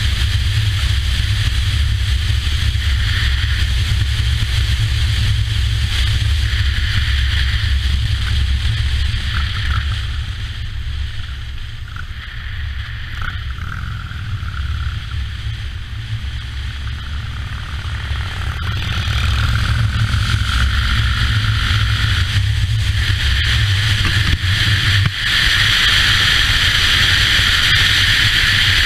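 Motorcycle riding at road speed: steady engine rumble under heavy wind rush on the microphone. The sound eases off for several seconds in the middle, then builds again as the engine climbs in pitch.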